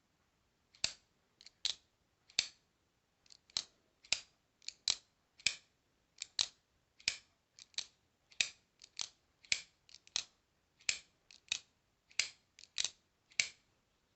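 Folding knife being opened and closed over and over: a run of sharp clicks, about two a second, often in close pairs, as the blade snaps open and shut.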